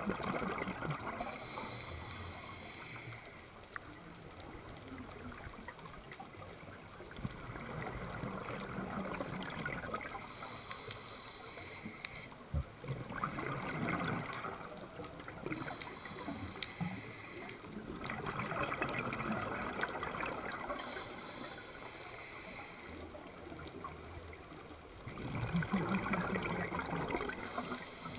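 Scuba diver breathing through a regulator underwater: exhaled bubbles gurgle in bursts about every five to six seconds, with quieter stretches between breaths.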